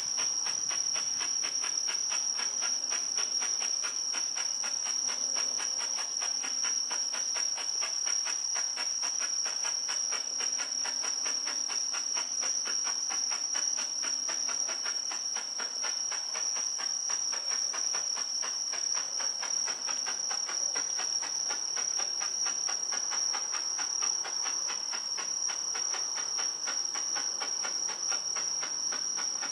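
Crickets chirping in a steady, high, rapidly pulsing trill, the loudest sound throughout. Under it is a low hiss from a ground bengal flare burning.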